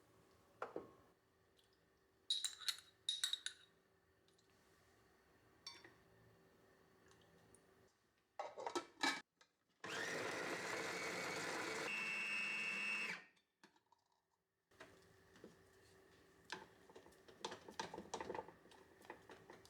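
An electric food processor runs in one burst of about three seconds. The motor noise is steady, with a whine that rises near the end before it cuts off. Sharp clicks and light knocks of kitchen work come before and after it.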